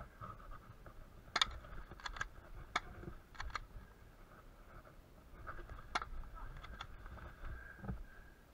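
Airsoft gunfire: about ten scattered sharp cracks, several coming in quick pairs.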